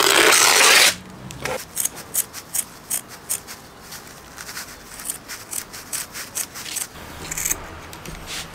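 Scissors snipping through coarse burlap, a run of short quick cuts, about three or four a second, after a loud scratchy rub in the first second.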